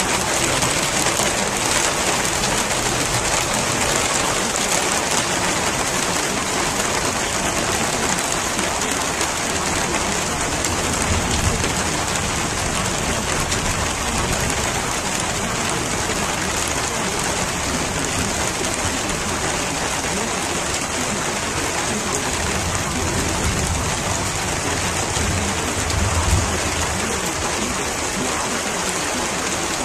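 Steady heavy rain falling in an even hiss, with low rumbles of thunder about ten seconds in and again near the end.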